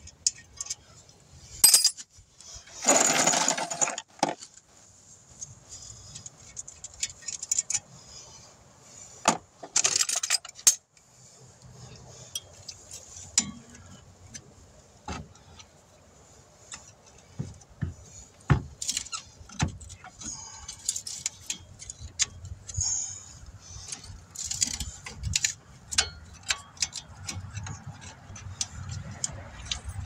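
Metal hand tools clicking and clinking against a car's front disc-brake caliper and pad hardware during a brake pad change, with a louder rasping burst lasting about a second and a half a few seconds in.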